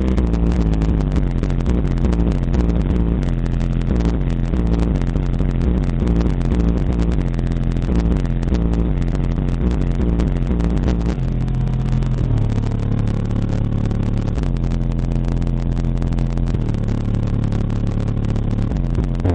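Two 15-inch Rockford Fosgate Power Punch PWR-415 subwoofers in a ported enclosure playing loud, long 808 bass notes that step between pitches, heard from inside the car. A rattling buzz rides along from the car's two blown 6x8 speakers.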